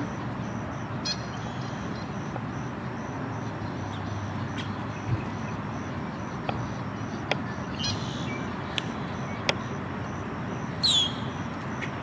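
Male red-winged blackbird calls: scattered short, sharp call notes, a brief chatter about eight seconds in and a quick descending whistle near the end, over a steady background hiss.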